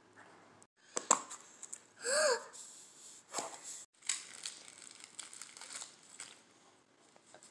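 Crinkling and rustling of a toy blind bag's packaging being handled and opened, in scattered crackly bursts with a sharp click about a second in.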